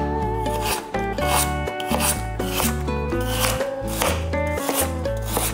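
Chef's knife slicing a raw carrot into rounds on a wooden cutting board, a crisp cut about twice a second, over background music with a bass line.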